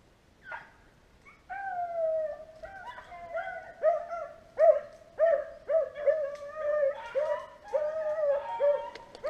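Beagles baying: a long drawn-out howl about a second and a half in, then a steady run of short bays about twice a second from more than one hound. This is the pack giving voice as it runs a rabbit's scent trail.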